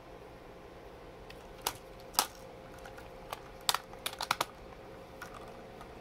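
Lego plastic pieces clicking and snapping as a hinged section of a Lego truck is worked closed. The clicks are scattered and sharp, the loudest about two seconds in, with a quick run of them around four seconds.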